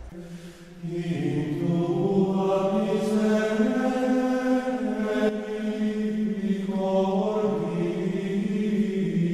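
Slow sung chant, voices holding long notes and moving slowly from one pitch to the next, coming in about a second in.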